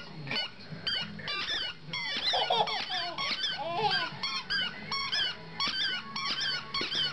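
Squeaky tennis-ball dog toy squeaked over and over as a dog chews on it: a quick run of short, high squeaks, a few a second, each dropping in pitch.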